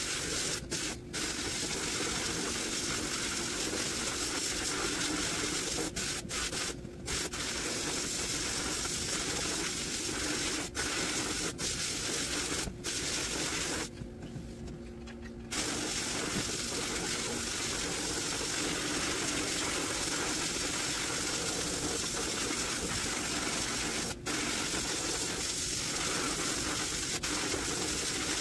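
Sandblasting cabinet's blast gun hissing steadily as abrasive media strikes the steel cutting reel of a 1950 Toro Sportlawn reel mower, stripping rust and paint. The blast cuts out briefly several times, and for about a second and a half near the middle, leaving a low hum.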